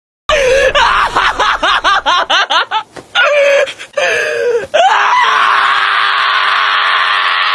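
A Shiba Inu crying out: about two seconds of quick, rising, high-pitched yelps, a few separate cries, then from about five seconds in one long, loud scream, the breed's scream of protest at being held down.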